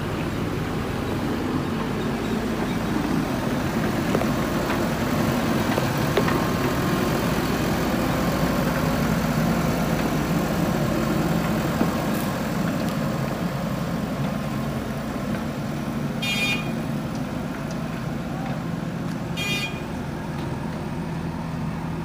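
Diesel engine of a JCB backhoe loader running steadily as the machine drives past, a little louder midway and easing as it moves off. Two short high beeps sound near the end, about three seconds apart.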